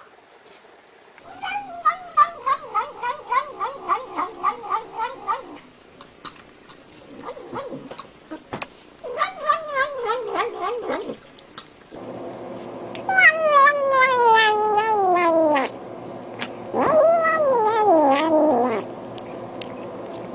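Cats meowing: first a quick run of short pulsing calls, about four a second, then several long drawn-out wavering meows, the longest sliding down in pitch.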